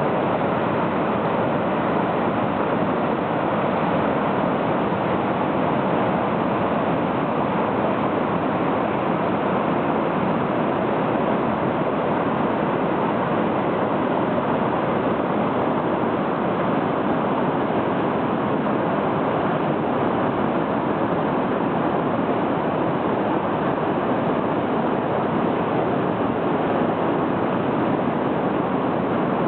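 River whitewater rapids rushing steadily: a dense, even noise of fast, high water breaking over standing waves.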